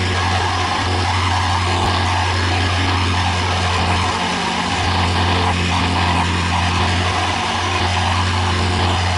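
Construction machinery engine running steadily: a constant low hum under an even, steady hiss.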